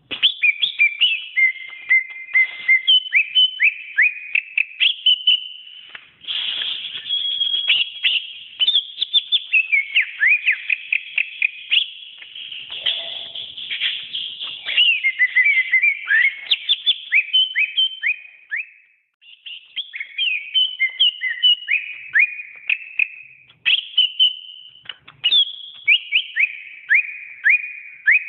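Green leafbird (cucak ijo) singing a long, fast, varied song of clear whistled notes, slurred glides and chirps, with one short pause about two-thirds of the way through.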